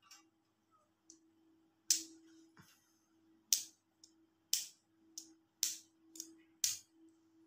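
Small sharp clicks, about six spread over several seconds, as the metal magnetic earbuds of a wired hands-free earphone are handled and clicked together, over a faint steady hum.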